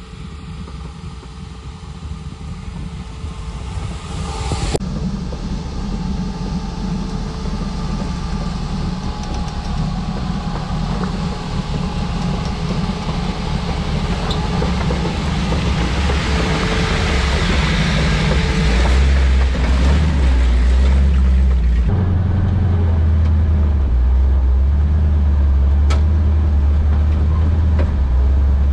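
Off-road Jeep's engine running under load as it crawls through mud and over a rocky washed-out trail, with a steady low engine note that grows louder and heavier in the second half.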